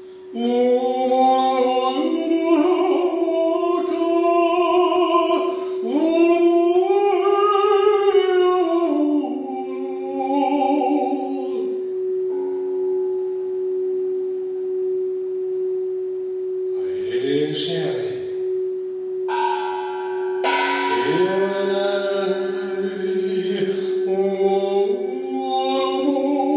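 A singing bowl rubbed around its rim holds one steady tone while men's voices sing long, wordless, gliding notes over it. The voices drop out about halfway through, leaving the bowl tone alone, and come back near the end.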